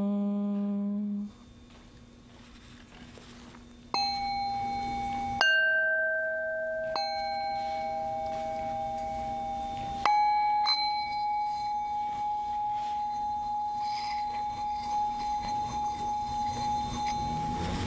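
A woman's hummed closing 'M' of a chanted AUM ends about a second in. After a short pause, small hand-held singing bowls are struck with a wooden mallet about five times. From about the middle on, one bowl keeps ringing steadily with a wavering swell, as when the mallet is circled around its rim.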